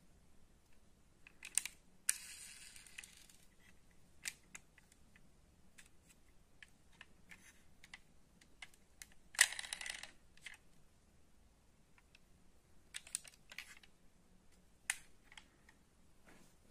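Light clicks and taps of a die-cast metal toy car being handled: picked up off a wooden table, turned over in the hands and set back down. A short rattling scrape about two seconds in, and a louder one about nine and a half seconds in.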